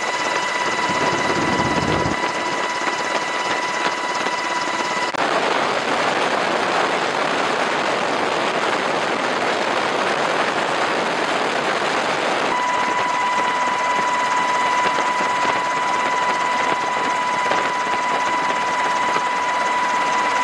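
Aircraft noise heard from on board: a steady engine drone with a high whine, the whine dropping out about five seconds in and returning about twelve seconds in.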